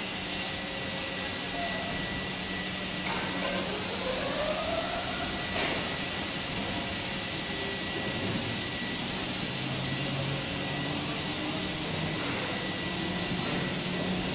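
Pulp bleaching machinery running: a steady mechanical hiss and drone from its drive motors, rollers and drum, with a thin steady whine over it.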